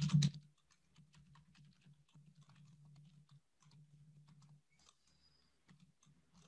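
Faint computer keyboard typing: quick, irregular key clicks over a faint low hum.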